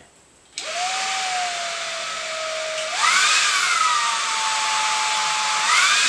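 Xiaomi Dreame XR cordless stick vacuum's high-speed motor switched on about half a second in and run through its three power modes: a steady whine that jumps higher and louder about three seconds in, and again near the end as it goes to maximum.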